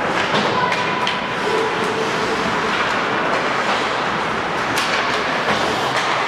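Ice hockey play on the rink: a steady scraping hiss of skates on the ice, with a few sharp clacks.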